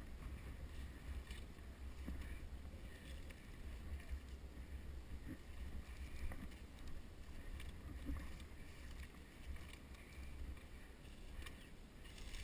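Steady low wind rumble on the action camera's microphone, with faint rustling and brushing of leaves and stems as the wearer pushes through dense undergrowth.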